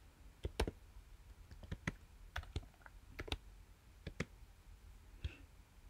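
Typing on a computer keyboard: a dozen or so soft keystrokes at an uneven pace as code is entered.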